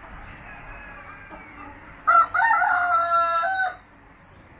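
A rooster crows once, about two seconds in: a short first note, then a long held call of about a second and a half that drops off at the end. Soft clucking from the flock comes before it.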